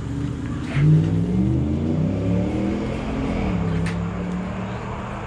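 Motorcycle engine pulling away: about a second in it revs up sharply, its pitch climbing in steps as it goes up through the gears, then it drops back and runs at a steady pitch.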